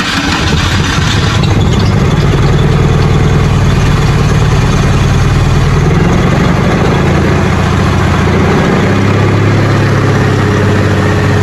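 1984 Holden VK Commodore engine running loudly and unevenly, its note dropping lower about three quarters of the way through. The owners say it sounds like it is running backwards, and it puffs white smoke back out of the carburettor: a fault from the ignition coil being unplugged and refitted.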